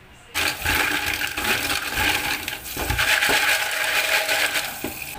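Kitchen tap water pouring onto green mussels in a mesh colander in a stainless steel sink, with many small clicks of the shells clattering against each other as they are rinsed. The water starts suddenly about a third of a second in.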